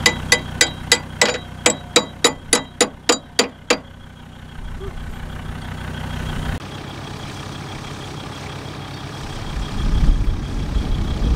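Sharp metallic clicks at about four a second from a hand tool being worked on a Land Rover Defender's rear tow hitch, stopping about four seconds in, over a vehicle engine idling. Near the end a louder low rumble comes in.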